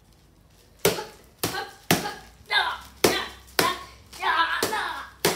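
Toy swords clacking together in a play sword fight: a run of about nine sharp knocks, roughly two a second, starting about a second in, with a child's voice between strikes.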